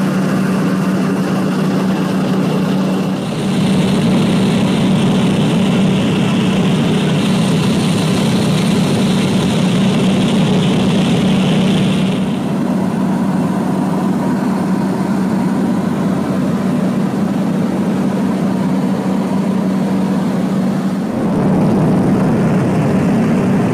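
de Havilland Turbo Beaver's PT6 turboprop engine and propeller droning steadily in cruise, heard from inside the cabin, with a strong low propeller hum. The hiss above the hum shifts abruptly a few times as the footage jumps between clips.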